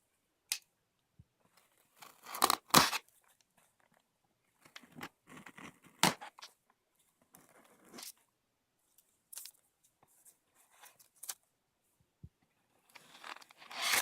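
Cardboard snack box being torn open by hand and its packaging handled: irregular tearing and rustling rasps, loudest about two to three seconds in, with a sharp tear near six seconds and more tearing near the end.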